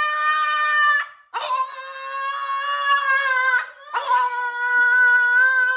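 French bulldog howling in three long, steady howls. The first is already under way and ends about a second in, the second runs from about one and a half to three and a half seconds, and the third starts about four seconds in.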